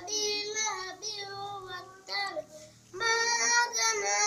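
A child's voice chanting a melodic Quran recitation in long held notes, dropping away about two and a half seconds in and coming back louder about three seconds in.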